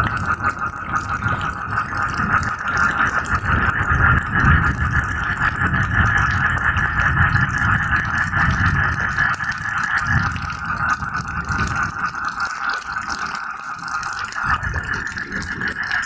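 Tropical rain ambience: a dense chorus of frogs calling in a steady rapid trill over the hiss of rain. A low rumble of thunder runs underneath and fades about three-quarters of the way through.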